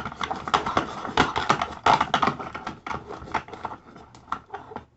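Sticky slime being stirred and worked, a rapid, irregular run of wet clicks and squelches that thins out near the end.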